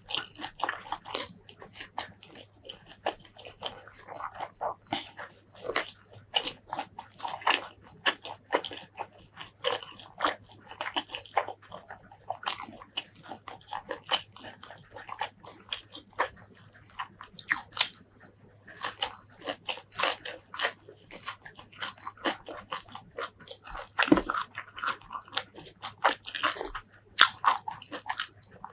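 Close-miked eating sounds of a person chewing mouthfuls of rice and pork curry taken by hand: biting and chewing with many short clicks from the mouth, thinning out briefly around the middle.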